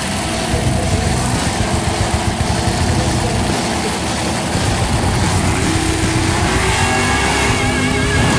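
Drag-race car engines at the starting line running loud, a heavy, choppy rumble with revving.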